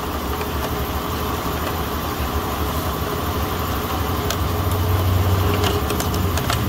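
Steady low hum of running workshop machinery, with a few faint light clicks in the second half.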